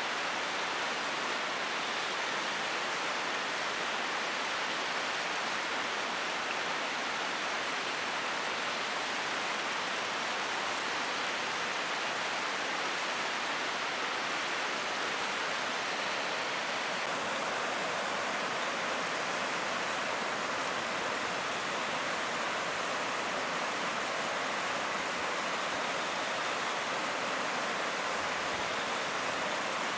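Steady rushing of James River rapids, whitewater pouring over rocks in an even hiss that gets a little brighter a little past halfway.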